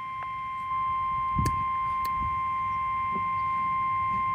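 NOAA Weather Radio 1050 Hz warning alarm tone, one steady high tone received off the air with a few faint static clicks. It announces a severe thunderstorm warning.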